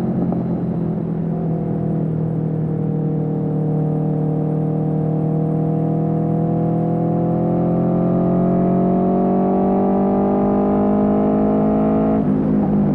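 Aprilia Tuono V4's 1077 cc V4 engine through an Austin Racing GP1R exhaust, pulling steadily with the pitch rising slowly, then dropping abruptly near the end as at an upshift.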